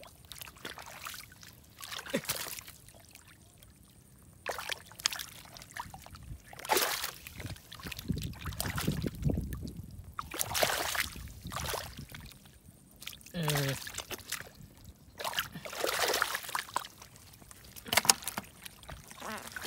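Hands sloshing and splashing through shallow muddy water, in irregular bursts with short quiet gaps between them.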